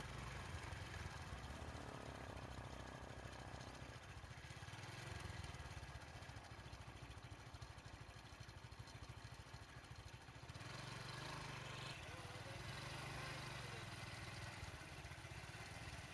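Vehicle engine idling, a low steady hum over faint background noise, its tone shifting about four seconds in and again about ten seconds in.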